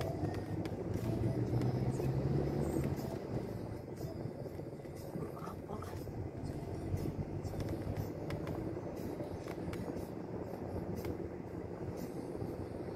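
Driving noise inside a moving car's cabin: a steady low engine and tyre rumble, a little louder for a couple of seconds about a second in.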